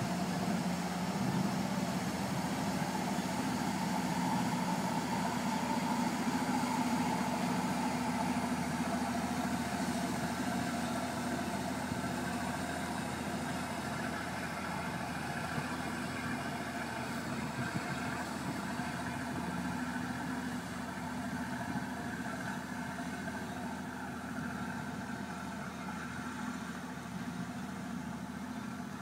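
A small workboat's engine running steadily as it pushes out against the incoming tidal current. It grows slowly quieter as the boat moves off up the channel.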